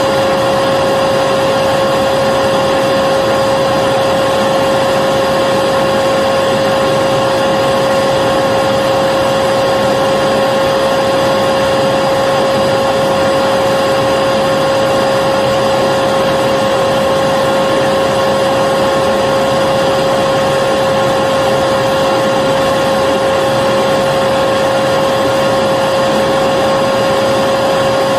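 Vacuum cleaner running steadily: a constant motor whine over an even rushing hiss, with no change in pitch or loudness.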